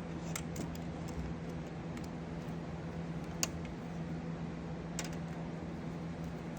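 A few light, sharp clicks and taps of metal as the red wire is worked into the switching power supply's screw terminal and the screw is tightened, over a steady low hum.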